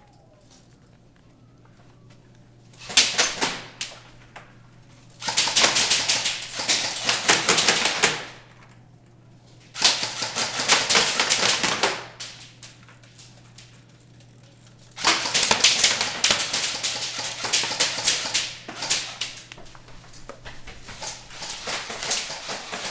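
Airsoft guns firing on full auto: a short burst about three seconds in, then long rattling bursts of two to three seconds each, separated by pauses, with scattered shorter strings of shots near the end.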